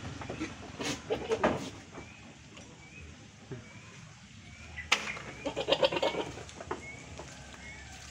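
Farm animals in a wooden goat shed: a few sharp knocks early on and again about five seconds in, then a short, rapidly pulsing animal call. Faint, short, high chirps recur every second or so.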